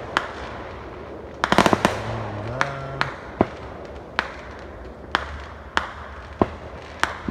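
Distant fireworks: sharp bangs of aerial shells going off at uneven intervals, about one every half second to a second, with a quick run of rapid crackling reports about one and a half seconds in.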